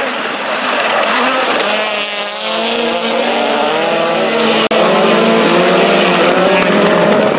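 A pack of rallycross cars racing through a corner, several engines revving up and down over one another at high revs, with tyre noise as the cars slide. The sound drops out for an instant about two-thirds of the way in.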